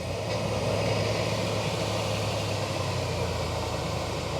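A 1997 GMC Safari's 4.3 Vortec V6 catches at the start and settles into a steady idle, running again now that its melted fuel pump connector has been repaired.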